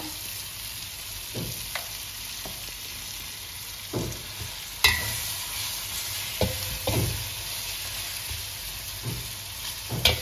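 Chicken pieces sizzling as they fry in oil in a hammered copper pot, stirred with a metal spatula that scrapes and knocks against the pot. One sharper clank about five seconds in rings briefly.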